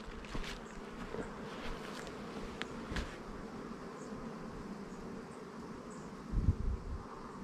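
Honeybees buzzing in a steady hum around the hive entrances, with a brief low thump about six seconds in.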